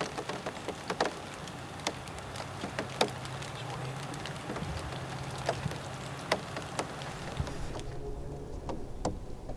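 Light wintry precipitation ticking irregularly on nearby surfaces, many scattered sharp taps over a soft hiss, with a faint steady low hum underneath.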